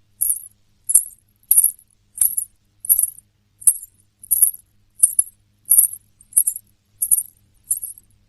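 Small metal bells jingling in a steady rhythm, twelve shakes about 0.7 s apart, each with a faint thud beneath it; the pattern stops suddenly at the end.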